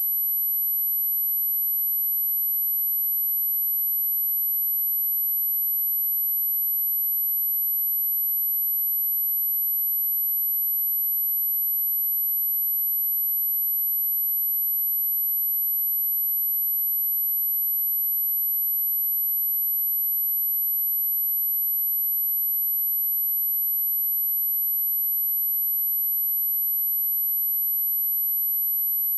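A steady, pure 11808 Hz sine-wave test tone, a single high-pitched whine held at constant pitch and level.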